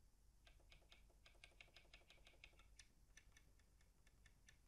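Faint clicking of the Yamaha Tyros 2 keyboard's panel buttons, pressed in quick succession at about five or six clicks a second, then more sparsely after about three seconds.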